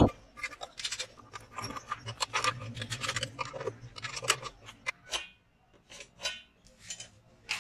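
Quick metallic clicks and clinks of a hand wrench and bolts as a muffler is fastened onto a small lawn mower engine, dense for about five seconds, then a few scattered clicks.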